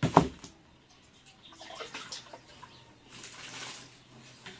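Hands kneading wet bread dough in a metal basin: a sharp slap at the very start, then scattered squelches, and water splashing about three seconds in as a metal cup is dipped for water.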